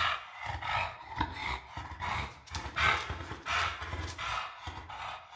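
English bulldog panting with its mouth open, quick rhythmic breaths about two to three a second.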